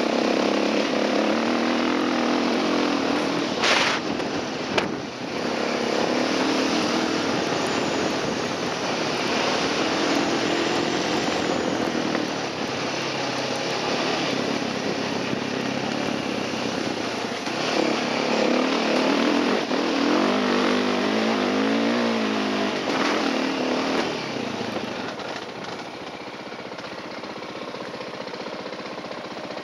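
Enduro dirt bike engine revving up and down as it is ridden over a rough trail, with two sharp knocks a few seconds in. Near the end it drops to a lower, steady idle.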